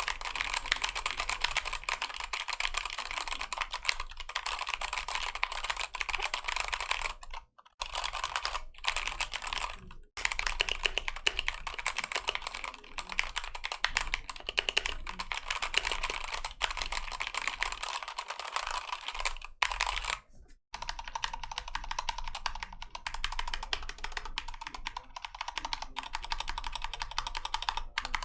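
Fast, continuous typing on a Keychron K2 (V2) mechanical keyboard with Gateron Red linear switches: a dense run of key clacks, stopping for a moment three times.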